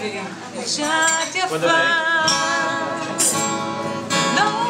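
A woman singing, accompanied by a strummed acoustic guitar, with some notes held and wavering.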